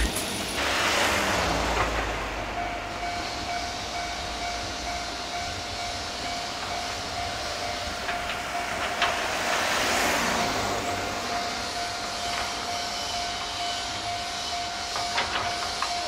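Railway level-crossing warning alarm sounding as a steady tone from a couple of seconds in, over traffic and rail noise that swells about a second in and again around ten seconds in.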